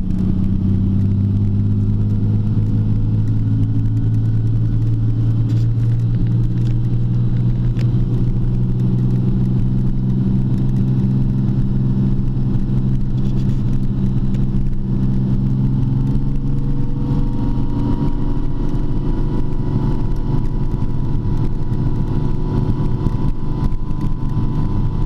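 TVR T350's straight-six Speed Six engine running steadily, its pitch shifting slightly about two-thirds of the way through.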